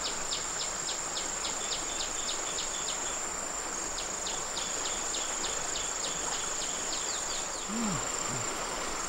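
Forest insects droning steadily at a high pitch. Over the drone, a quick run of short chirps repeats about four times a second, pausing briefly about three seconds in and stopping near the end.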